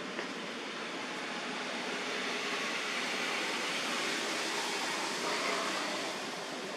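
Steady outdoor background noise: an even hiss that swells slightly in the middle, with no distinct event standing out.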